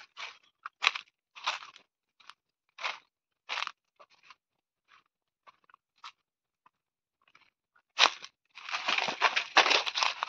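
Footsteps crunching on dry fallen leaves along a forest trail, a step roughly every two-thirds of a second, growing fainter midway. About eight seconds in comes a longer, denser spell of crunching and rustling.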